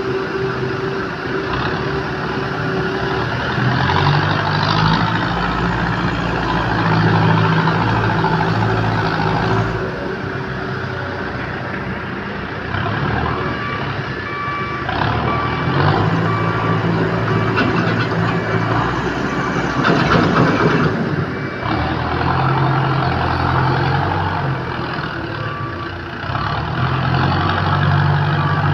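Backhoe loader's diesel engine running and revving up and down in spells as it works, with a reversing alarm beeping in short runs several times.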